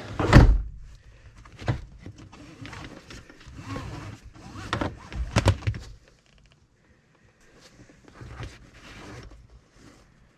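Knocks and clicks of seatbelt hardware and its latch being handled and tested, with a loud knock at the start and a couple of sharp knocks about five seconds in, then faint rustling.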